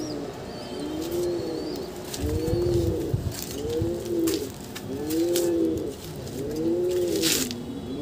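Domestic pigeons cooing over and over, about one swelling rise-and-fall coo a second. A few light clicks and a short scrape about seven seconds in.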